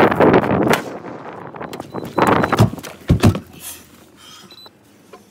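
Wind buffeting the microphone, then movement and a car door shutting with a heavy thump about three seconds in.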